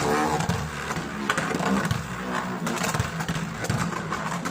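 Launched Beyblade Burst spinning tops whirring in a plastic stadium, with a steady humming spin and frequent clicks and scrapes as they move and knock against the stadium.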